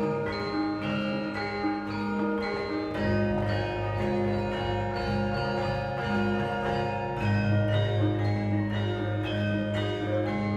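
Instrumental music: a steady pulse of struck notes over long held low notes.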